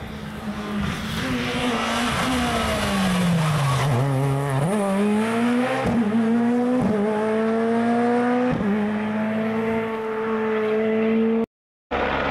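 Rally car engine winding down as the car slows for a corner, then accelerating hard away through several gear changes, each marked by a sharp crack, with the pitch climbing between shifts. The sound cuts out briefly near the end.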